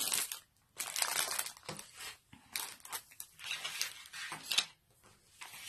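Clear plastic packaging crinkling in several short rustles as hands handle bagged craft supplies.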